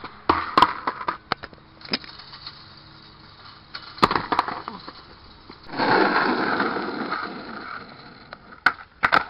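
Skateboard hitting asphalt: a series of sharp knocks and clatters from the deck and wheels, with a noisy stretch of about two seconds in the middle as the wheels roll over rough asphalt.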